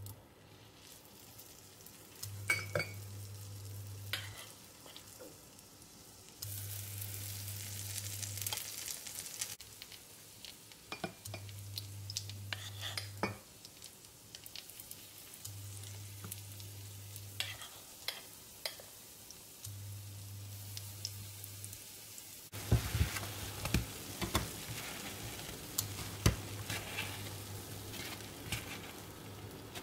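Sour cream pancake batter frying in hot oil in a nonstick pan, sizzling, with sharp clicks of a metal spoon scooping batter against the pan and bowl. The sizzling gets louder about two-thirds of the way in. A low hum from the hob comes on and cuts out every four seconds or so.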